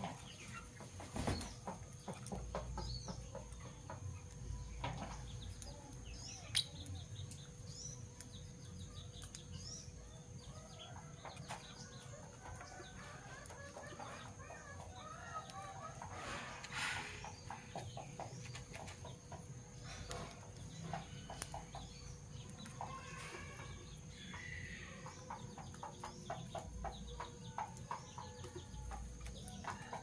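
Fischer's lovebirds moving about a wire cage: scattered short chirps and soft chatter, with beak taps and scratching on the wooden perch and brief wing rustles.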